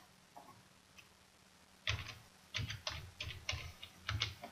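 Computer keyboard typing: a quick run of keystrokes starting about two seconds in, after a near-silent start.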